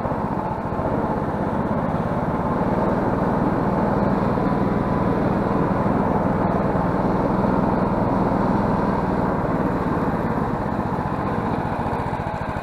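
Snowmobile engine running steadily as it travels along a packed snow trail, a little louder in the middle and easing slightly near the end.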